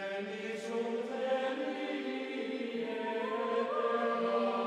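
Background music of long, held, choir-like notes, with a step up in pitch a little past three seconds in.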